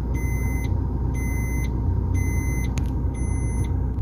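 Car moving slowly over a dirt track, a steady low rumble heard from inside the cabin. A high-pitched electronic beep repeats about once a second, four times.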